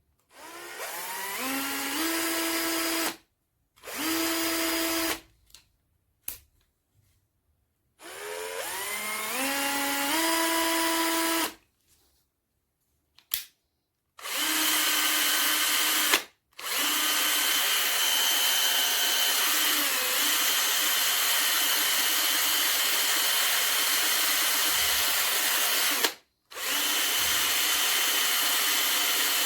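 Bosch EasyImpact 18V-38 cordless drill running free in several trigger pulls, its motor whine rising in pitch as it spins up each time and stopping abruptly between pulls; about halfway through it runs steadily for around ten seconds.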